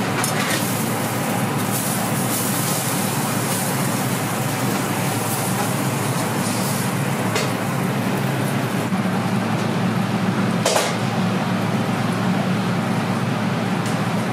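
Steady noisy roar of a restaurant kitchen's grill and its extraction, with a sharp metallic clack from the tongs about eleven seconds in.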